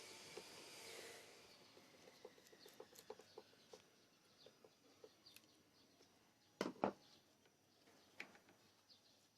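A small motor's whine and hiss dies away over the first two seconds. Faint scattered ticks follow, then two sharp knocks in quick succession about six and a half seconds in.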